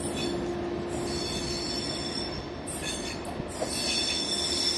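ČD railjet passenger coaches rolling along the station track with a steady rumble, their wheels squealing in high-pitched screeches that come and go several times and are loudest near the end.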